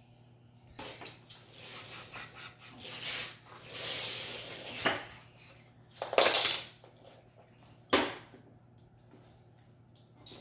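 Hard plastic toy track pieces being handled and pressed onto a plastic tower. Rustling and clattering, with sharp plastic snaps or knocks about five, six and eight seconds in as the track section clicks into place.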